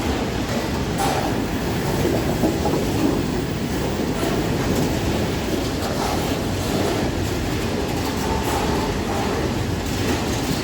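Freight train hauled by a Class 66 diesel rolling past at a steady pace, its wagon wheels clicking over the rail joints.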